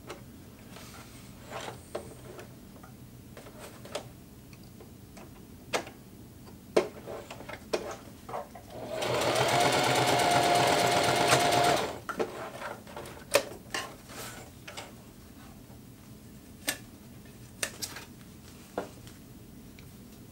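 Singer Heavy Duty electric sewing machine sewing a quick burst of about three seconds in the middle: a steady motor hum over a rapid run of needle strokes. Before and after it, scattered light clicks and knocks as the fabric and machine are handled.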